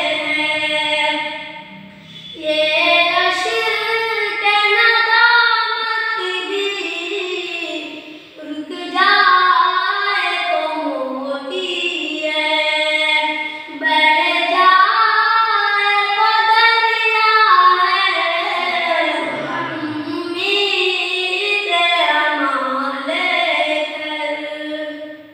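A solo high voice singing an Urdu naat, a devotional song in praise of the Prophet, in long ornamented phrases with short pauses for breath.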